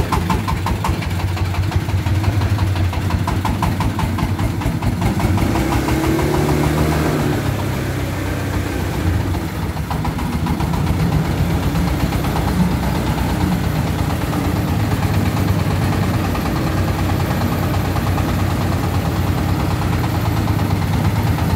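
Engines running steadily at low speed: the single-cylinder diesel of a homemade three-wheeled công nông farm truck, loaded with bricks, chugging along slowly, together with the motorbike following it.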